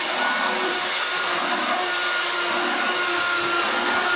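An electric power tool's motor running steadily: a constant whine over an even rushing noise.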